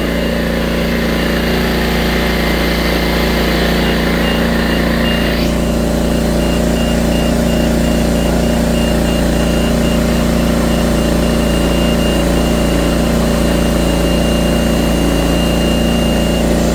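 Diesel farm machinery engine running steadily at an even speed while a TMR feed mixer works a load.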